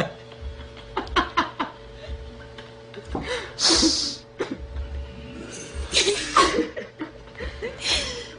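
Short bursts of laughter and snickering over a steady background music bed, with a breathy, hiss-like burst about three and a half seconds in.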